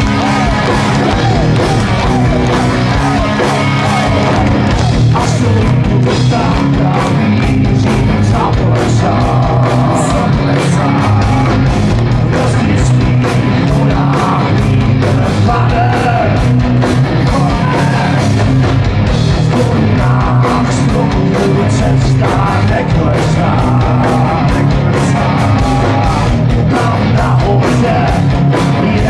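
Live rock band playing loud, with electric guitars and a steady driving drum beat, heard from the audience.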